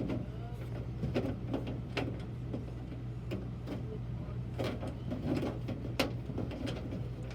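Scattered clicks and taps of screws being driven by hand into a desktop PC's sheet-metal side panel, over a steady low hum.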